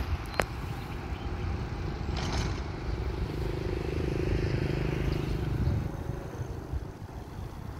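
A motor vehicle's engine passing by, growing louder from about three seconds in and dropping away just before six seconds, over a low rumble.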